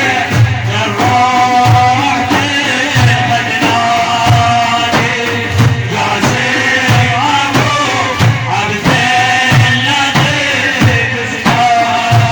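Music of an Iraqi madih praise song: a held, ornamented Middle Eastern melody line over a steady low drum beat.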